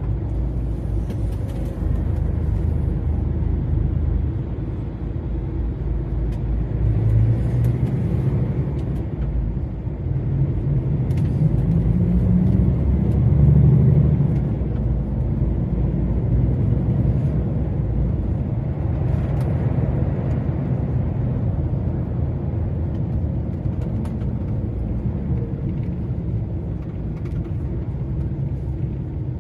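Steady low engine and road rumble of a DAF XF 480 truck on the move, swelling louder twice, around a quarter and just under halfway through.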